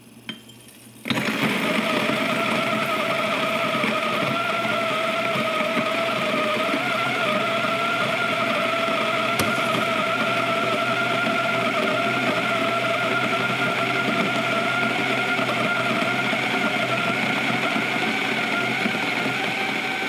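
A Weber EG-1 and a Lagom P100 flat-burr coffee grinder grinding beans together. It is a steady motor whine with two held tones over the crunch of the burrs, and it starts suddenly about a second in.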